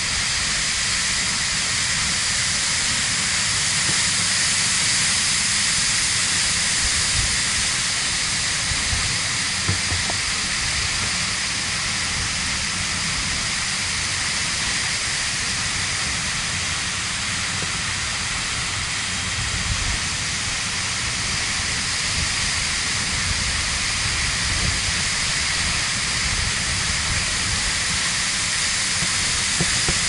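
Steady rushing of a waterfall and white water tumbling over rocks into a plunge pool, with an uneven low rumble underneath.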